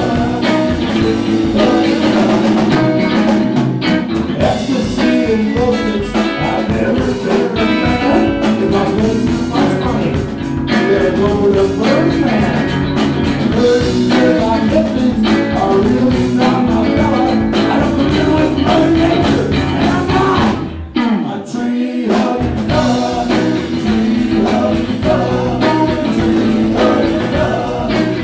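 A live rock band plays: a male voice sings over electric and acoustic guitars and a drum kit. The music drops out for a moment about three quarters of the way through, then carries on.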